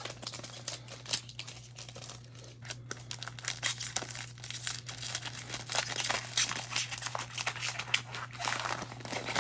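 Plastic wrapping of a trading-card blaster box and pack crinkling and tearing as it is opened by hand, in irregular crackles that grow busier in the second half, over a steady low electrical hum.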